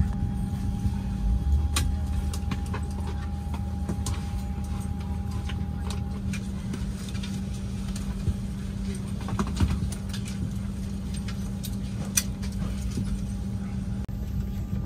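Steady low hum inside an Airbus A320 cabin parked at the gate, with a faint high tone that stops about six seconds in and a few scattered sharp clicks and knocks.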